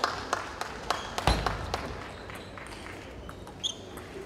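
Table tennis rally: the celluloid-type ball clicks off bats and table about three times a second, with one heavy low thud about a second in. The rally stops before two seconds, and a couple of short high squeaks follow near the end.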